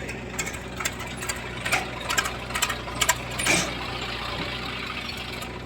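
Tractor or backhoe diesel engine running steadily, with scattered sharp clicks and knocks and a brief louder surge about three and a half seconds in.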